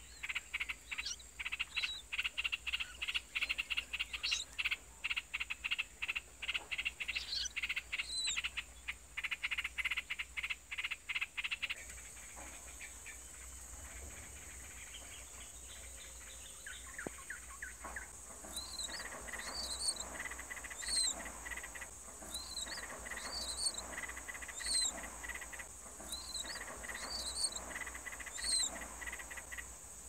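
Animal calls: a fast, loud rattling trill for about the first twelve seconds, then, after a sudden change, a fainter buzzing with short high chirps repeating about once a second.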